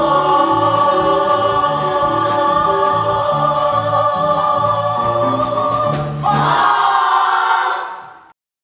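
A group of singers holds a chord over instrumental backing with a moving bass line and light percussion ticks. They move to a new, brighter chord about six seconds in, then fade out.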